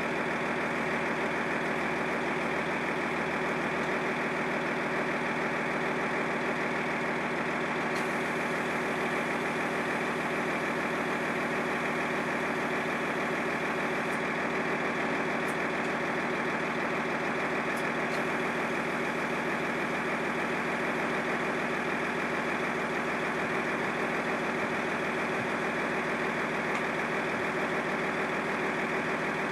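Engine idling steadily, running the hydraulics of a boat-transport trailer, with a few faint clicks.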